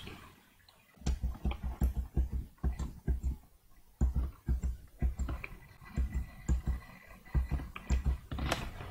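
Computer keyboard key pressed over and over, about two to three taps a second with a short pause partway through. It is the F8 key stepping through a VBA macro one line at a time.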